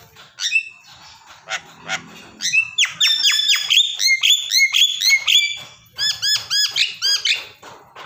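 Javan myna calling: a few short calls, then from about two and a half seconds in a loud, fast run of repeated arching notes, about four or five a second, broken briefly near the end.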